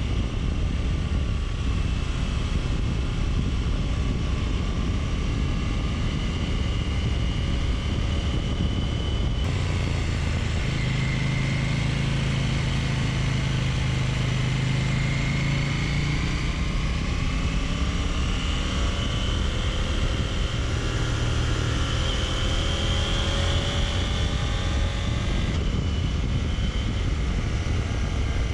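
Motorcycle engine running under way with heavy wind rumble on the camera microphone, the engine pitch rising and falling with the throttle and gear changes. The sound changes abruptly twice, about a third of the way in and near the end.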